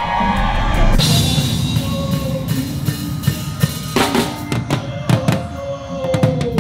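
Live band playing with the drum kit up front: kick, snare and cymbal hits over the music. The sound changes abruptly about a second in, and the drum hits grow sharper and more frequent from about four seconds in.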